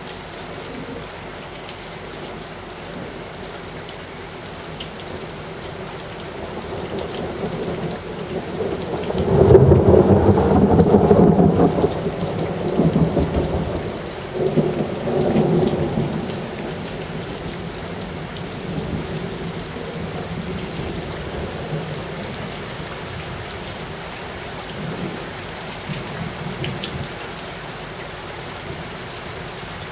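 Steady rain falling through a thunderstorm, with a long roll of thunder that builds about seven seconds in, peaks a few seconds later, and rumbles on in waves before fading back under the rain.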